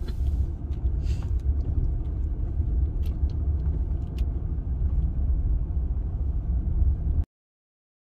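Steady low rumble of a Jeep Gladiator driving on a snowy road, heard inside the cab, with a few faint clicks; it cuts off suddenly about seven seconds in.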